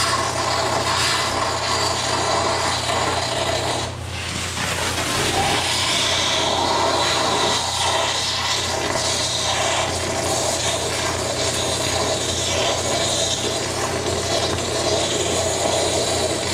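Exothermic cutting rod (oxygen lance) burning out a tractor's front axle pin with a steady loud hiss, dipping briefly about four seconds in. A steady low hum runs underneath.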